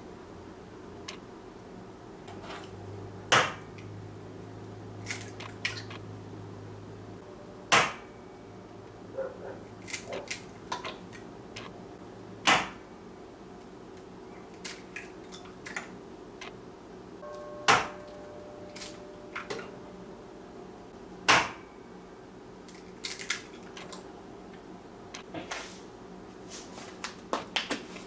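Scattered sharp knocks and clicks of kitchen items being handled and set down, five of them louder than the rest, over a low steady hum.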